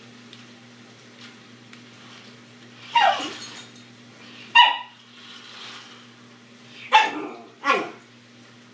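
Small terrier barking four times at a remote-control toy car, each bark short and falling in pitch: two about three and four and a half seconds in, then a quick pair near the end.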